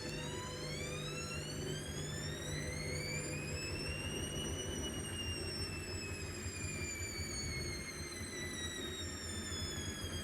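Hoover Dynamic Next washing machine running, its motor giving a high whine that climbs in pitch for about five seconds and then slowly sinks, over a steady low rumble of the drum. It is loud, reading close to 80 decibels on a meter.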